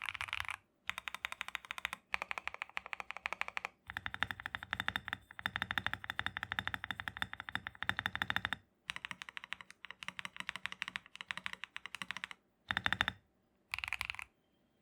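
Akko PC75B mechanical keyboard with Akko Cream Yellow Pro linear switches being typed on quickly, in runs of rapid keystrokes broken by short pauses, with a few shorter bursts near the end.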